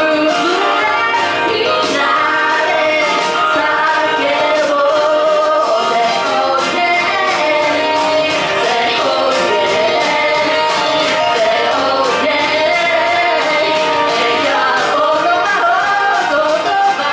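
A woman singing live into a microphone over a pop backing track with a steady beat, amplified through the venue's sound system.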